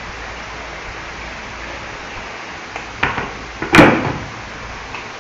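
Steady hiss of a recording microphone, with a short burst of noise about three seconds in and a louder rush of noise lasting about half a second just before four seconds in.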